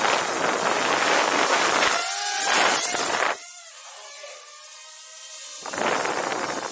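Ryze Tello mini quadcopter's propellers buzzing and rushing loudly as the drone flies right past the microphone, in two passes: one for the first three seconds or so, with a short rising and falling whine in its second half, and another beginning near the end.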